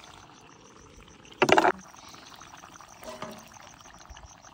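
A frog croaks once loudly, about a second and a half in, and again faintly near three seconds. Under it runs a steady hiss and a fast, even high-pitched ticking.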